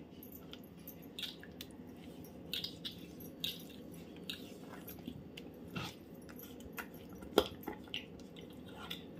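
Steel spoon stirring thick, lumpy rice-and-lentil flour batter in a steel pot: faint wet squelching as the lumps are broken up, with a few sharper clicks.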